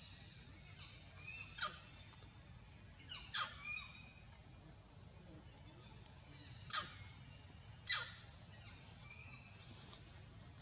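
Birds calling in the surrounding trees: four short, sharp calls, each a quick downward sweep, spread through the stretch, with fainter chirps between them.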